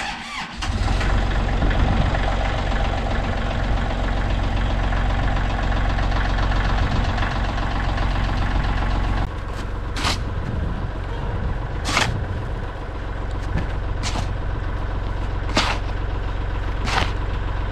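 Kubota L3301 tractor's diesel engine starting about half a second in, then idling steadily, a little quieter about halfway through. In the second half, sharp clicks come every second or two over the idle.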